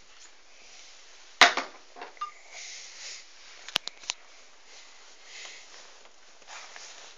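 One loud, sharp knock about a second and a half in, with a short ring in the small room, then a couple of lighter knocks and three quick sharp clicks near the middle, with faint rustling between.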